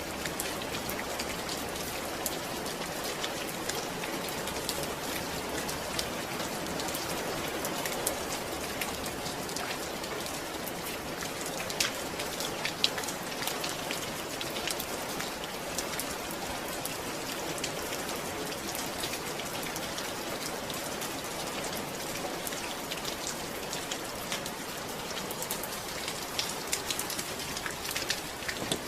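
Steady rain falling, with the sharp taps of individual drops scattered throughout.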